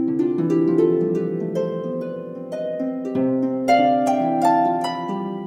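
Background music: a harp playing a flowing run of plucked notes, several ringing together.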